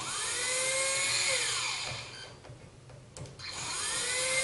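Cordless power drill with a socket backing out a long housing screw from a trolling motor's lower unit. The drill whirs up, runs for about a second and a half and winds down, then after a click starts again about three seconds in.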